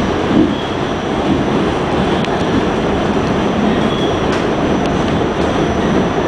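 Pullman Standard R46 subway car running at speed, heard from inside the car: a steady rumble of wheels on rail, with a couple of sharp clicks and brief faint high squeals.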